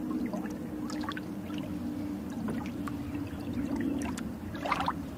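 Shallow muddy puddle water splashing and dripping as toy trucks are moved through it, with small scattered splashes throughout. Under it runs a steady low hum.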